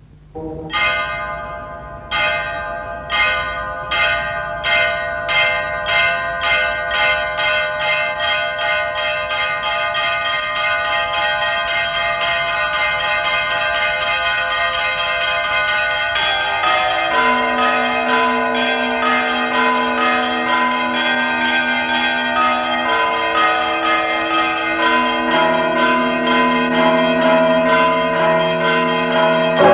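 Church bells ringing: single strokes about a second apart that quicken into a steady, continuous peal, with lower, deeper tones joining a little past halfway.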